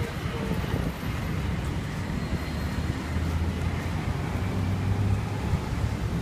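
City street ambience: a steady low rumble of road traffic.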